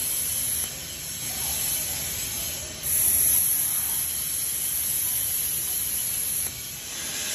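Electric arc welding: a steady hissing arc on steel that drops out briefly a little under a second in, starts up louder again, and dips again near the end.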